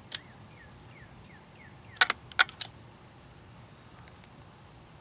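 Metal wrench clinking against the fuel-rail screws and engine parts while the screws are being tightened: one sharp clink near the start, then a quick cluster of clinks about two seconds in.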